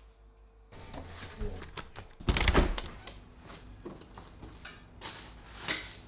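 A door thuds about two seconds in, followed by a few fainter knocks and rustling.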